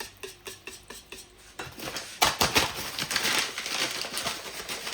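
A kitchen utensil stirring pancake batter in a bowl: light, evenly spaced strokes against the bowl, then about two seconds in a louder, faster, wetter mixing.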